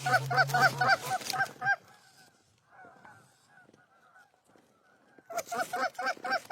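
Goose honking: a fast, even run of loud honks that drops to faint, scattered honking partway through, then returns loud for the last second or so.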